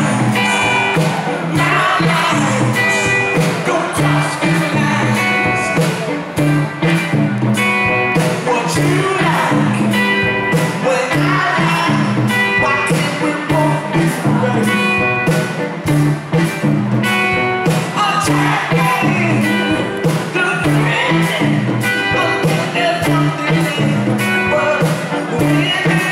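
Live rock band playing with a steady drum beat and electric guitar while the lead singer sings.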